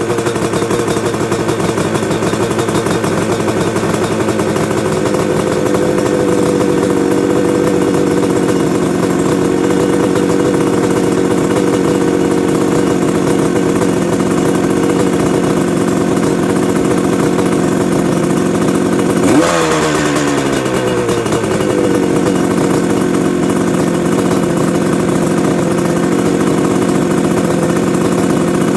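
1972 Yamaha R5C's 350 cc two-stroke parallel twin idling while it warms up after a cold start. The idle eases down slightly over the first few seconds, then holds steady. About two-thirds of the way through, one quick blip of the throttle rises sharply and falls back to idle over a couple of seconds.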